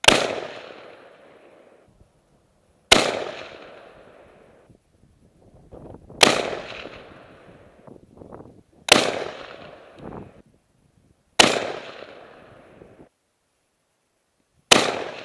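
Savage 111 bolt-action rifle in .300 Win Mag fired six times, about every three seconds, each sharp shot trailing off over a second or two.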